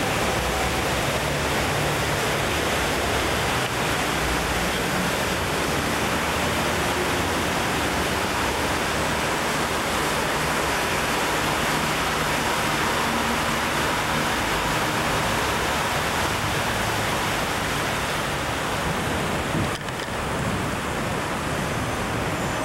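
Steady rushing noise of a canal tour boat under way, with a low engine drone beneath it and a brief dip about twenty seconds in.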